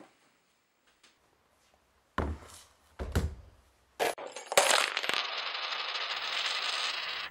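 Small hard objects, coins among them, falling and clattering onto a wooden floor in four separate hits about a second apart. The last hit runs into a loud, steady rushing noise that cuts off suddenly.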